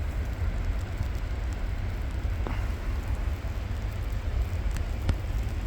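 Wind buffeting the phone's microphone as a steady low rumble under a constant hiss, with one or two faint ticks.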